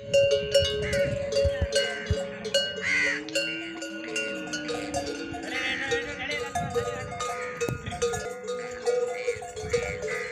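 Metal neck bells on walking camels clanking and ringing irregularly as the herd moves. Several short higher-pitched calls sound over the bells, the loudest about three seconds in.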